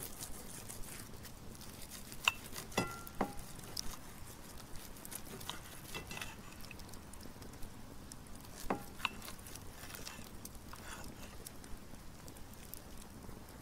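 Steel knife and fork cutting into a thick steak, with several short clinks of cutlery against the plate, a pair about three seconds in and another near nine seconds, over a faint steady hiss.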